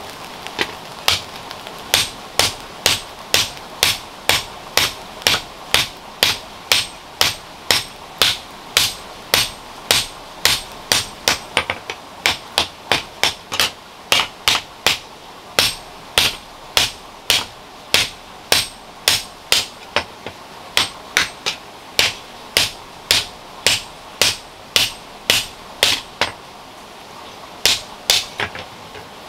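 Hand hammer forging a red-hot iron shovel blade: a steady run of ringing blows, about two a second. The blows pause briefly near the end, then come back as a few quick strikes.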